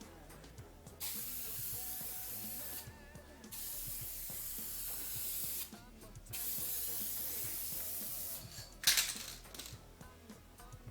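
Aerosol can spraying clear acrylic top coat onto a headlight lens in three passes of hiss, each about two seconds, with short pauses between, and a brief louder spurt near the end.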